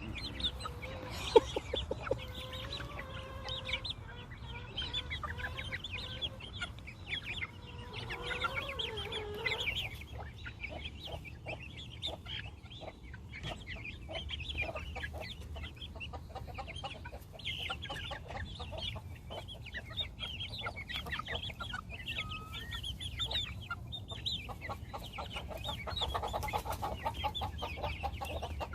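A mixed flock of heritage-breed chickens clucking continuously, with a few longer drawn-out calls in the first ten seconds or so.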